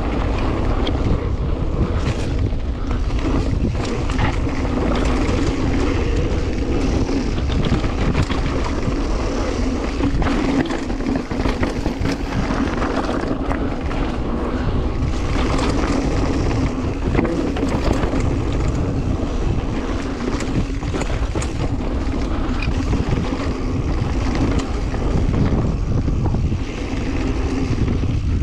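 Mountain bike riding a rocky trail: the tyres rumble and the bike clatters over rocks, with many short knocks, under a steady rush of wind on the camera's microphone.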